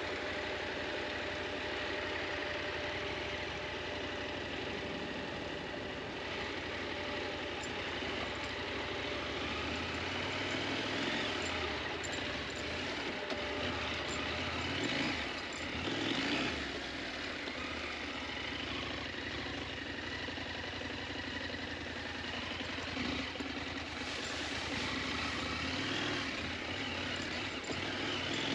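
KTM 890 Adventure motorcycle's parallel-twin engine running off-road, its revs rising and falling several times in the middle, with a steady rush of noise over it.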